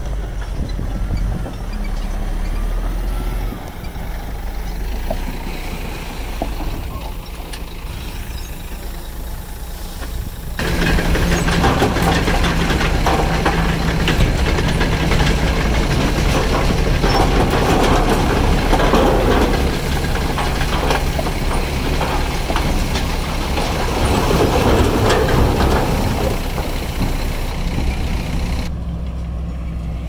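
Bulldozer's diesel engine running steadily. From about ten seconds in, a much louder grinding and clattering with many knocks joins it, then stops abruptly shortly before the end.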